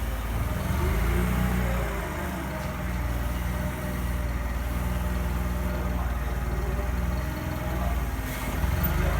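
Motor vehicle engine running steadily, its revs shifting up and down a little a few times.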